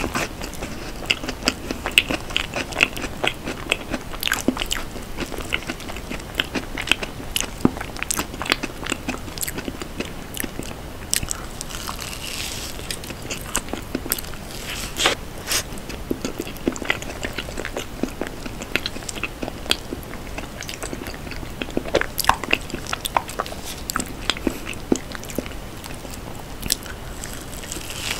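Close-miked chewing of a soft, cream-topped dessert: wet, sticky mouth sounds with many sharp clicks and smacks, and a fresh bite near the end.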